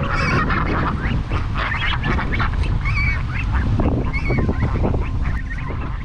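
A flock of domestic geese honking and calling in short, scattered calls as they walk, over a steady low rumble of wind on the microphone.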